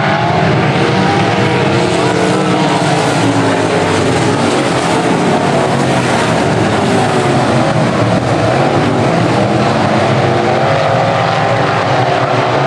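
A pack of IMCA Modified dirt-track race cars running hard around the oval. Their V8 engines blend into one loud, steady drone, with the pitch wavering up and down as the cars go through the turns.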